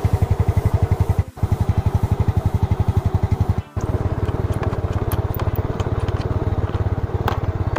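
Yamaha Mio Sporty scooter's single-cylinder four-stroke engine idling with an even, rapid putter, briefly broken off twice. A few faint clicks of a hand tool on the under-seat bolts come through in the second half.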